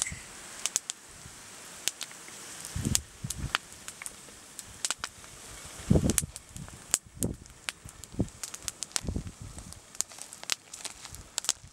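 Wood fire of burning logs and embers crackling, with frequent short sharp pops, and several dull low thumps scattered through, the loudest about six seconds in.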